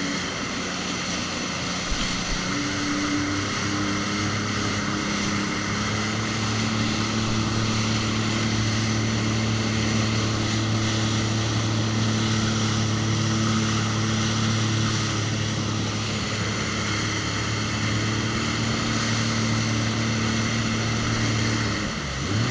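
Jet ski engine running at a steady, held pitch over a broad hiss, its pitch rising at the very end as the throttle opens.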